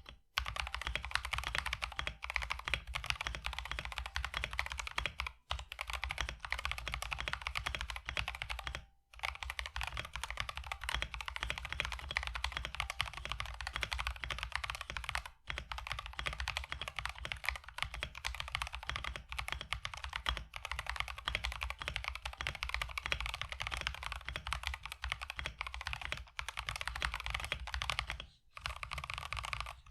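Typing on a mechanical keyboard fitted with Infinity Key Cow V2 linear switches (POM top and bottom housings, long-pole stem), run stock and unlubricated: a continuous rapid clatter of keystrokes, broken by brief pauses a few times.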